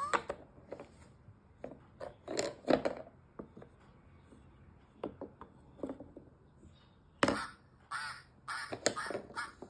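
Toy sound puzzle playing a recorded animal sound through its small speaker, a run of short repeated calls from about seven seconds in, after a few scattered knocks of wooden pieces.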